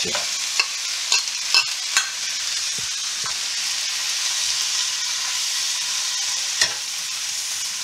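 Mustard greens sizzling in a hot, oiled nonstick wok while a metal ladle stirs and tosses them. The ladle knocks and scrapes against the pan now and then, making several sharp clicks over the steady sizzle.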